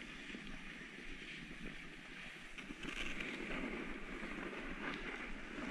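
Skis or a board sliding over groomed snow, a steady scraping hiss with wind on the microphone, growing louder about three seconds in.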